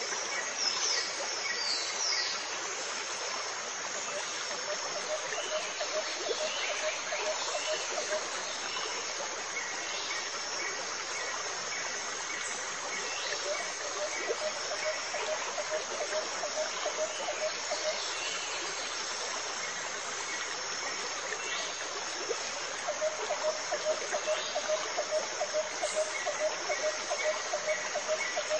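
Steady running water, with a rhythmic pulsing animal call that comes and goes and faint high chirps over it.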